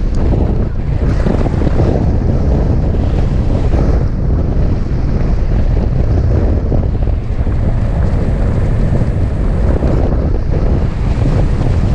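Wind rushing over the microphone of a camera mounted on a hang glider in flight: loud, steady, gusting wind noise, deepest in the low end.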